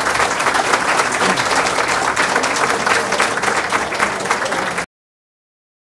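Audience applauding at the close of a lecture. The clapping cuts off suddenly near the end.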